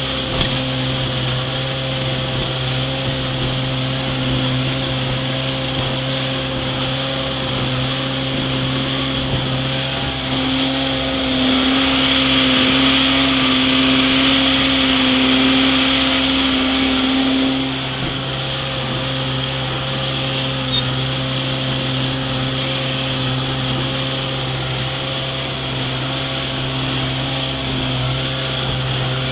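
Vintage 40 hp Johnson two-cylinder two-stroke outboard running steadily at speed, pushing a runabout over the water. The motor is freshly rebuilt and runs smoothly. It is louder for several seconds around the middle.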